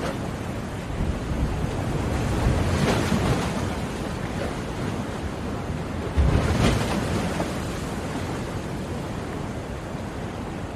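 Ocean waves breaking on a shore, a steady rush of surf with two waves swelling and crashing, the louder one about six seconds in.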